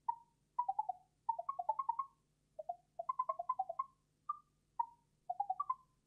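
SillyTavern Blip extension playing rapid, short pitched blips as the chat text appears, simulating a character's speech. The blips come in quick runs that step up and down in pitch, broken by short pauses.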